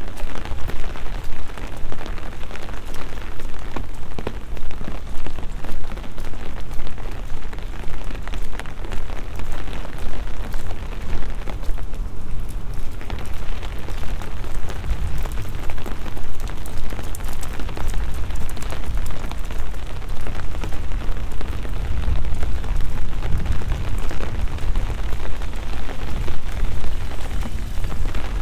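Steady rain falling on wet streets and paving, with many small drop ticks and a heavy, uneven low rumble of wind buffeting the microphone.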